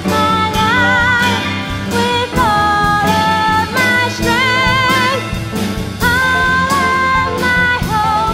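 A lead singer sings a contemporary worship hymn with vibrato on held notes, backed by a live band of piano, guitar, bass and drums.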